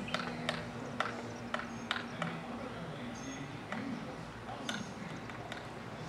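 Red-bellied woodpecker pecking and probing at tree bark while digging out a worm: sharp, irregular taps, about six in the first two and a half seconds and one more near the end.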